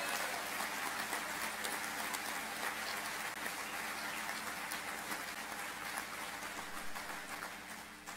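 Audience applauding, a dense patter of many hand claps that dies away near the end.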